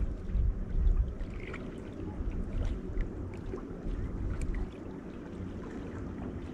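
Wind buffeting the microphone in an uneven low rumble, with small waves lapping and trickling against the rocky shore. The wind rumble dies down about two-thirds of the way through, leaving the faint lapping.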